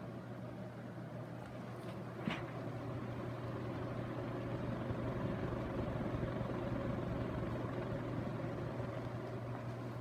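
TAT Oceanway II ceiling fan running at speed: a steady motor hum under the whoosh of the blades moving air. A brief click about two seconds in, after which the sound grows slightly louder.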